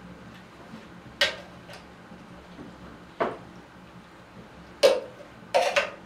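Metal spoons clinking against a metal pan and plates while people eat: four sharp clinks a second or two apart, the last a short clatter near the end.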